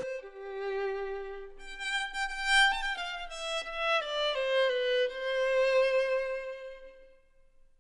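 Music: a solo violin playing a slow phrase of held notes that steps down in pitch and ends on one long note fading out near the end.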